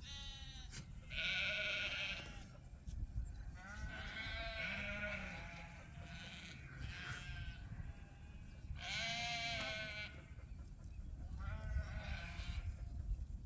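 A flock of lambs bleating, about six quavering bleats from different animals one after another, a couple of them overlapping, over a low steady rumble.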